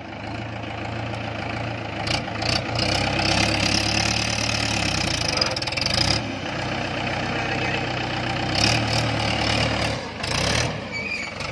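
Diesel engine running steadily, revving up and easing off several times.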